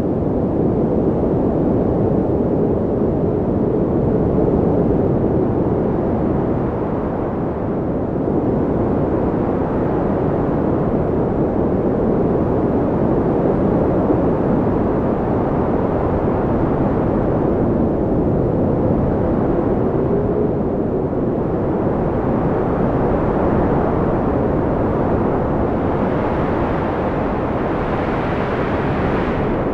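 Blizzard wind blowing hard and steadily: a deep, rushing howl that swells and eases slowly, with a faint whistling tone rising briefly about two-thirds of the way through.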